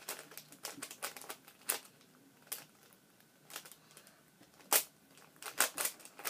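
LanLan 4x4 speed cube being turned by hand during the last layer of a solve: quick plastic clicks of layer turns in irregular bursts. A short lull in the middle, then one louder snap and a fresh run of turns near the end.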